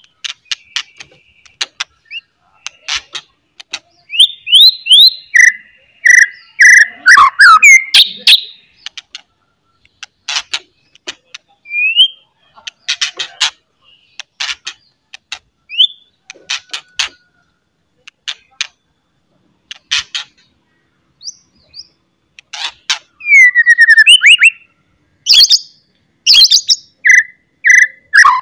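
White-rumped shama singing in bursts: rapid sharp clicking 'cetrekan' notes mixed with loud whistled phrases that slide up and down. There is a sparser stretch with only scattered notes about two-thirds of the way through.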